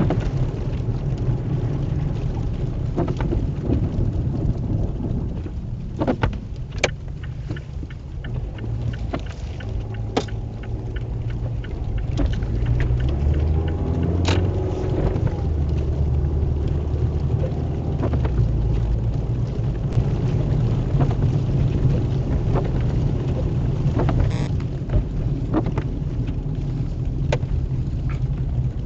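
Rain and snow ticking against a vehicle over a steady low rumble, with a deeper rumble swelling for several seconds around the middle.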